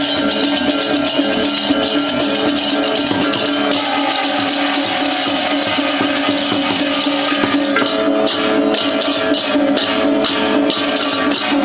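Balinese gamelan music with drums and metal percussion over sustained ringing tones. About eight seconds in, the high strokes turn into separate accents at roughly two a second.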